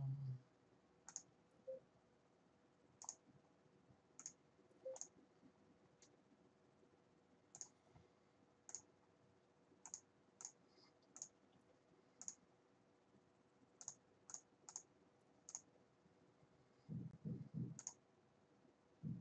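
Computer mouse clicking: about fifteen sharp single clicks at irregular intervals. A few soft, low muffled sounds come near the end.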